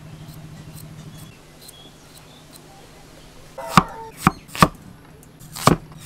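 Large kitchen knife chopping peeled potatoes on a wooden chopping board: five sharp strikes in the last two and a half seconds, after a faint low hum that fades about a second in.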